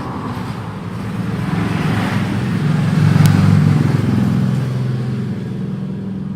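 A motor vehicle passes by: its engine sound swells to a peak a little past the middle, then fades away. A short click comes about three seconds in.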